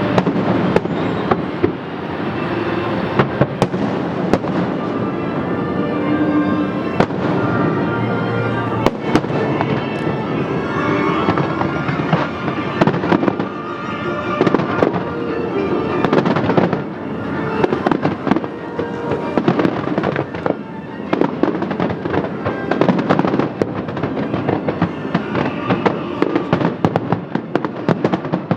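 Fireworks display with many sharp bangs in quick succession, shell after shell, over music playing along with the show.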